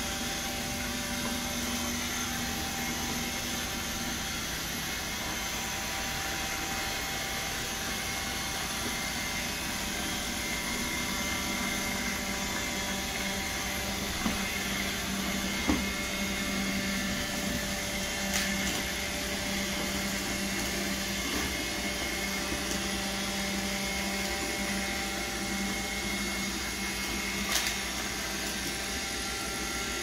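Roomba vacuum (iRobot Create 2) running steadily, its motor and brushes whirring and humming as it sweeps a hardwood floor, with a few brief sharp clicks.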